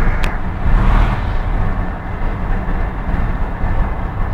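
Car driving at road speed heard from inside the cabin: a steady low rumble of engine and road noise with a hiss over it, and one short click just after the start.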